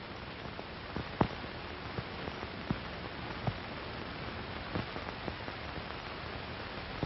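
Steady surface hiss of an old film soundtrack, with scattered crackles and pops, the loudest a little over a second in. No music, voices or other sound.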